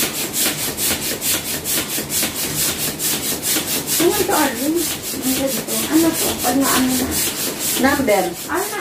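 Hand-held balloon pump worked back and forth, a hiss of air at about four strokes a second, inflating a foil balloon. From about halfway, wavering higher-pitched sounds join in, and the pumping fades near the end.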